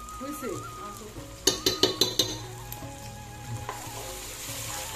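Onions, tomatoes and spice paste sizzling in oil in a nonstick pot while a wooden spatula stirs them. A quick run of about five sharp clicks of the spatula against the pot comes about a second and a half in.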